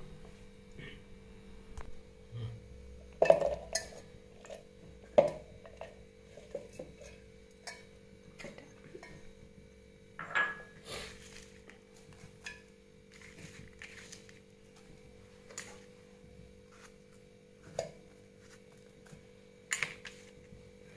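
Scattered clinks and knocks of ingredients and utensils against a stainless-steel mixer-grinder jar as it is filled for grinding, with a few louder knocks among them. A faint steady hum sits underneath.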